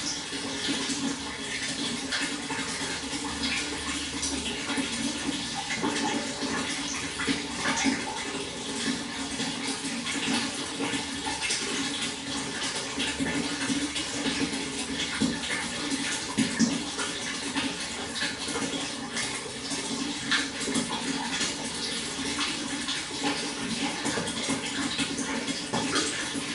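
Flowing water running and splashing steadily, with many small irregular splashes over a constant rush.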